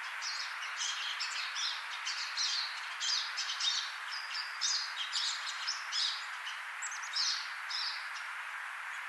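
House finch singing: a long, rapid warble of varied high notes lasting about eight seconds, over a steady background hiss.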